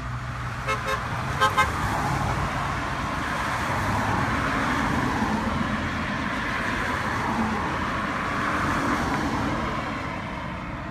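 A car horn gives a few short toots in the first two seconds, then passing cars' tyre and engine noise swells and fades as vehicles drive by.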